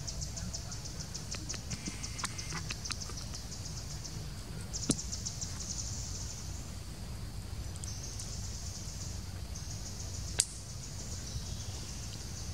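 Forest insects keeping up a high-pitched chorus that pulses rapidly for the first few seconds, then runs as a steady drone, over a low steady rumble. Two sharp clicks stand out, about five seconds in and near ten seconds.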